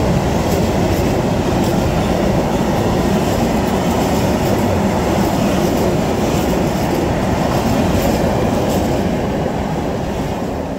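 Freight train of open-top wagons rolling past close by: a steady, loud rumble of wheels on rail with repeated clicks of wheelsets crossing rail joints. The sound starts to fade near the end as the last wagon passes.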